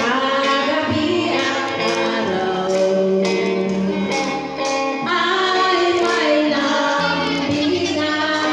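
Music with a group of voices singing together over a sustained accompaniment.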